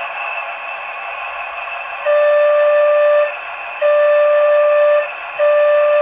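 Onboard sound unit of a garden-railway model diesel locomotive, played through its small speaker: a steady hissing engine-idle background, then three loud single-pitched horn blasts of about a second each, starting about two seconds in.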